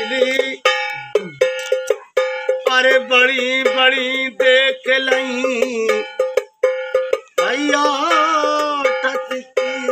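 Rhythmic taps on a stainless-steel canister played as a hand drum, each stroke leaving a short metallic ring. A man's sung folk melody comes in over it in two phrases, about two and a half seconds in and again about two seconds before the end.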